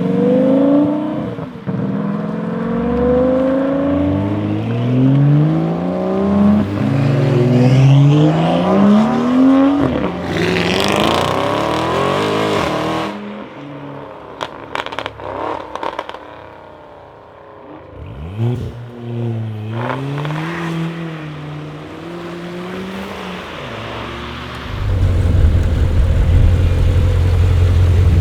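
Decatted Audi RS6 C7's twin-turbo 4.0 V8 through a Milltek exhaust, accelerating hard through several upshifts, its pitch climbing and dropping back with each gear, then passing loud and close. A burst of sharp pops and crackles follows, then another quieter pull, and near the end a loud steady low drone.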